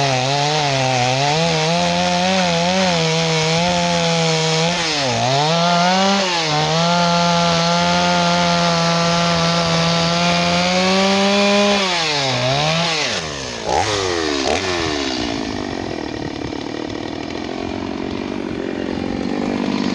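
Gas chainsaw running at high revs while cutting into a log, its pitch dipping briefly twice. About two-thirds of the way through, the engine drops toward idle as the saw comes out of the wood.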